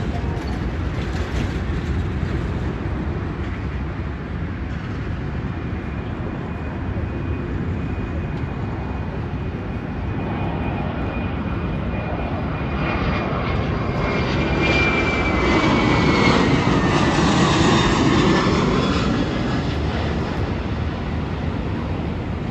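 Airbus A319 jet airliner on landing approach passing close by. Its engine noise builds to a peak about three-quarters of the way through, with a high whine sliding down in pitch as it goes past.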